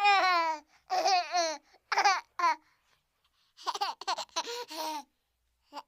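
High-pitched squealing vocal calls in short bursts with wavering pitch, a pause in the middle, then a quick choppy run like laughter.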